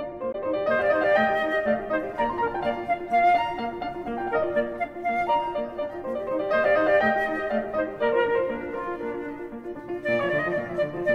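Instrumental music: a melody on a wind instrument over piano accompaniment, its phrases dipping a little about nine seconds in before a new phrase starts.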